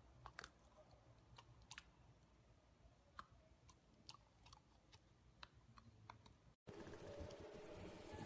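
Faint, scattered sticky clicks of a golden retriever puppy licking and chewing peanut butter off a spoon. About two-thirds of the way through, these stop and give way to faint steady room noise.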